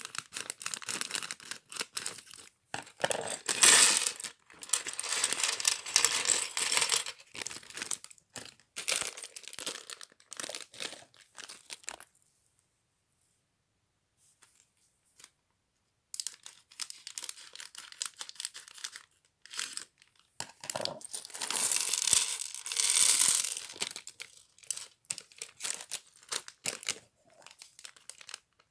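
LEGO packaging being torn open and crinkled: plastic parts bags and wrapping rustling and tearing in bursts, with a pause of a few seconds about halfway through.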